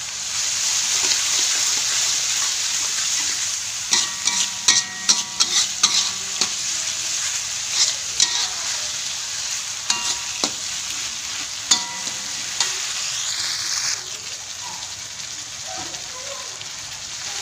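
Water spinach stems sizzling in a metal wok while a metal spatula stirs them, scraping and clanking against the pan with short ringing clinks, thickest about four to six seconds in. The sizzle eases a little near the end.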